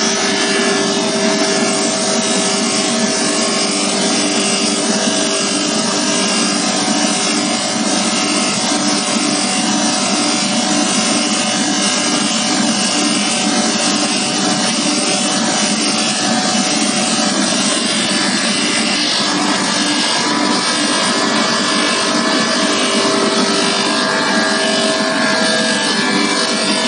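Coal-and-gas dual-use industrial burner firing: a loud, steady roar with a few steady humming tones running through it.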